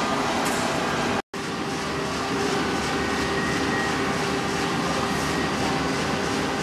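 Funicular haul cable running over the rollers between the rails, a steady even hum with a low steady tone running through it. Just over a second in, the sound breaks off for a moment and resumes.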